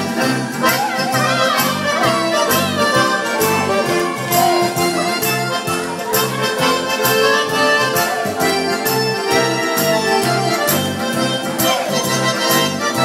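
Accordion music with a steady, evenly repeating bass beat under sustained chords and melody.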